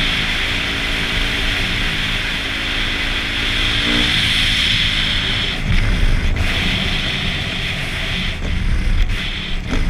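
Husqvarna TC250 four-stroke single-cylinder dirt bike riding at a steady speed. About four seconds in the engine note fades as the throttle is closed, and the bike coasts with gusty wind rumble on the microphone.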